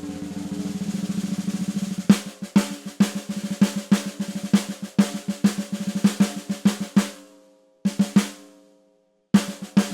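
Ludwig 14x6.5 raw brass Phonic snare drum (1.2 mm seamless brass shell, coated Remo Ambassador head) played with sticks: a fast roll for about two seconds, then a groove of loud accented strokes with softer notes between them. The drum rings out at about seven seconds, takes two more hits, pauses, and rolls again near the end.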